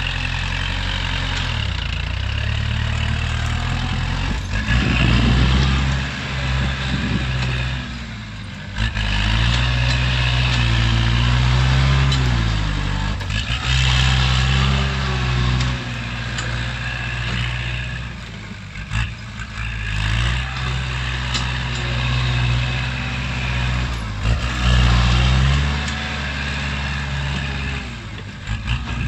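Kubota L-series tractor's diesel engine working as the tractor pushes soil with its front blade, the engine note rising and falling again and again with throttle and load, with a few brief dips.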